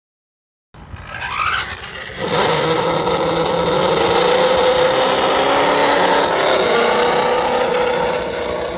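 RC cars running on asphalt: a short rising motor whine about a second in, then a loud, steady motor sound with a slightly wavering pitch.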